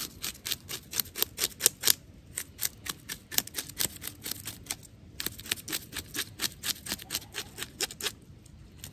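Knife blade scraping the scales off a small fish in quick, sharp strokes, about four a second, in runs with short pauses.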